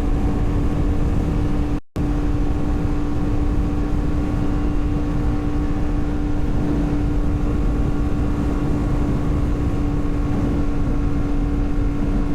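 Yamaha MT-10's crossplane inline-four through a RaceFit Growler X exhaust, running at a steady engine speed while cruising, with low wind rumble. The sound cuts out for a moment about two seconds in.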